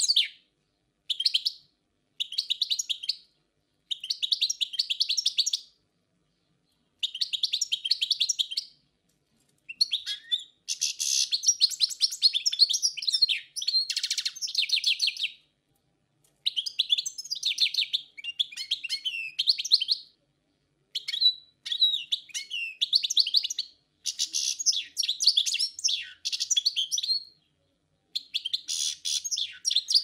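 European goldfinch singing: about a dozen bursts of quick, high-pitched twittering song, most one to four seconds long and one of about five seconds, with short silent pauses between them.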